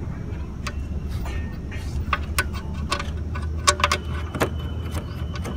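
Irregular metallic clicks and clinks of a socket with a T45 Torx bit turning the oil drain plug of a Maruti Suzuki Ciaz, loosening it to drain the engine oil. They sound over a steady low hum.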